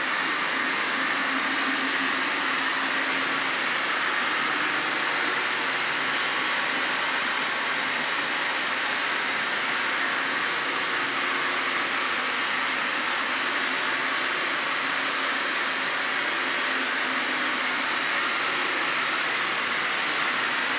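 Single-disc rotary floor scrubber running steadily, its pad scrubbing wet ceramic tile: a constant motor hum under an even scrubbing hiss.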